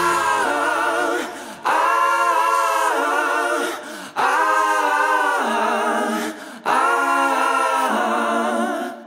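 Background music: a cappella voices singing sustained chords in four long phrases with short breaks between them, fading out at the end.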